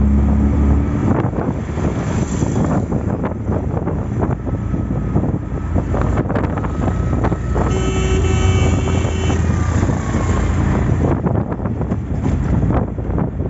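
Riding inside a moving auto-rickshaw: engine and road noise with a steady low rumble, wind buffeting the microphone, and occasional knocks from the ride. A steady pitched tone sounds for about a second and a half past the middle.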